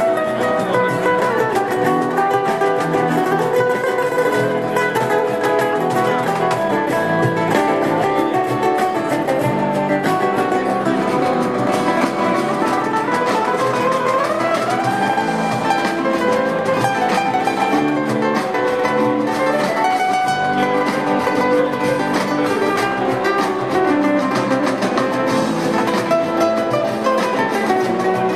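Instrumental rumba flamenca played live: a white cutaway flamenco-style acoustic guitar carries fast plucked melodic lines over electric bass and cajón. A rising run of notes comes about halfway through.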